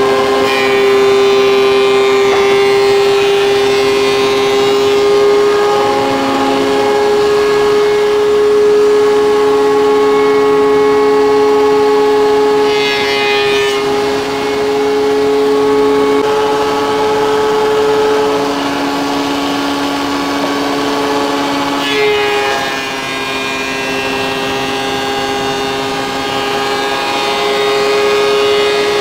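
DeWalt benchtop thickness planer running with a steady high whine while a squared timber is fed through and planed, its tone shifting slightly a few times and a brief rush of higher noise twice.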